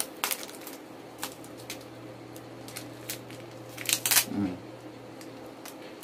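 Plastic wrapping crinkling and crackling as a small tape-wrapped package is handled and peeled open, in scattered bursts, the loudest about four seconds in.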